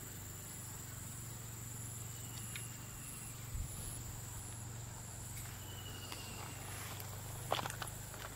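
Insects chirping steadily in roadside grass: a constant high-pitched drone with a regularly pulsing chirp above it, over a low steady hum. A few sharp handling knocks come near the end.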